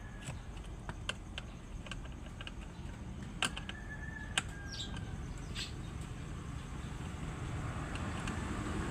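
Scattered light clicks and taps of hand work over a steady low rumble, with a short high chirp about halfway through; a vehicle's noise swells near the end.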